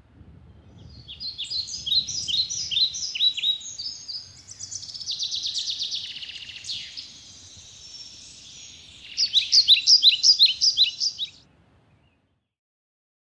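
A songbird singing: quick runs of short, falling whistled notes, a buzzy trill in the middle, then a louder run of the same falling notes, stopping about eleven and a half seconds in.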